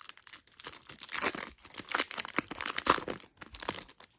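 Foil trading-card pack being torn open and crinkled, an irregular run of crackling and ripping.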